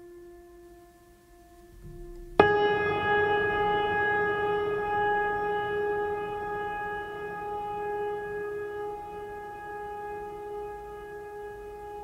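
Meditation music: a soft sustained tone, then about two and a half seconds in a loud struck bell-like tone rings out and slowly fades.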